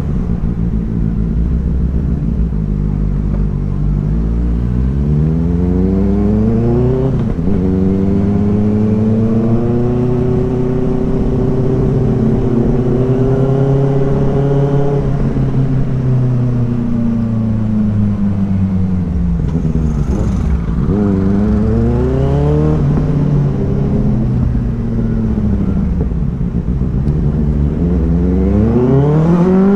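Inline-four motorcycle engine running, steady at first, then revving up in long rising sweeps. The pitch drops sharply about seven seconds in, climbs and holds, then falls back. A few quick dips and rises follow, and it climbs again near the end.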